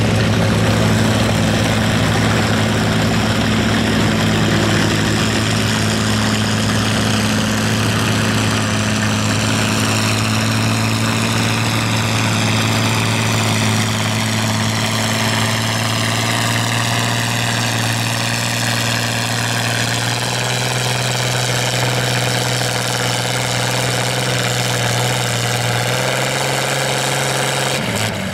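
Farmall 460 tractor engine running hard under load as it pulls a transfer sled, a steady note that slowly falls in pitch as the drag builds, then drops away at the very end.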